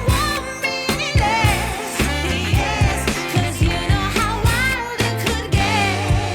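Background pop music with a female singing voice and a steady beat.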